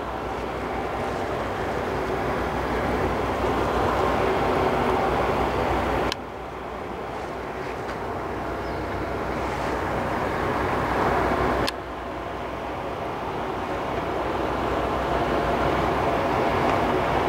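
Fishing boat's engine running steadily under a rush of water and wind noise. The noise swells slowly and then drops off suddenly with a click, about six and about eleven seconds in.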